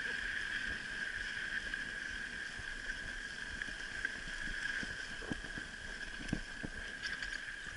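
Mountain bike rolling along a dirt singletrack: tyre noise and rattling, with a few knocks over bumps a little past halfway, under a steady high-pitched whine.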